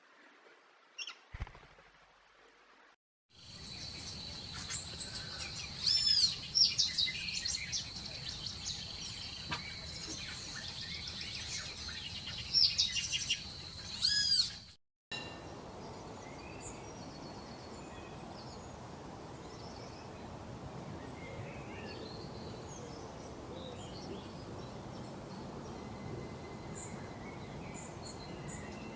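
Wild birds chirping and singing, with short sweeping calls over a steady high tone, cut off about halfway through; after a brief gap come fainter, scattered chirps over a steady hiss of outdoor background noise. The first few seconds are nearly silent apart from a couple of faint clicks.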